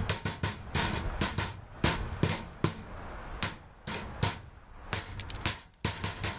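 Handling noise from baiting a wire cage trap: many irregular sharp clicks and knocks as pieces of bait are dropped into the trap and onto the snow beside it.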